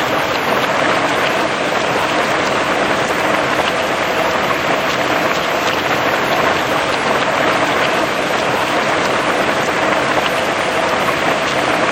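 Heavy rain falling steadily on grass and tree leaves, a dense even hiss with many individual drops pattering through it.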